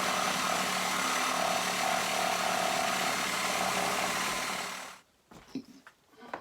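A power tool runs steadily, then cuts off abruptly about five seconds in, followed by a few light knocks.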